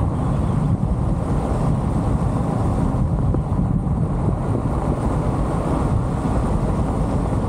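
Steady low rumble of wind and road noise from a moving car, with wind buffeting the microphone.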